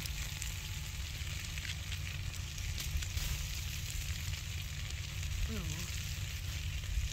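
Beef frying in butter in a hot pan, sizzling and spattering steadily over a low rumble.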